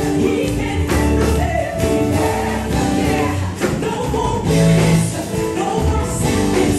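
Live gospel music: a woman lead singer sings into a microphone with backing singers over a band with drums.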